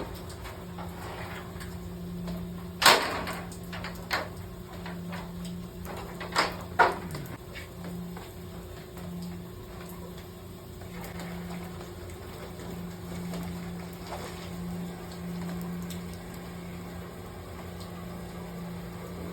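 A steady low hum of running boiler-room machinery, with a few sharp knocks a little under three seconds in, about four seconds in, and twice between six and seven seconds in.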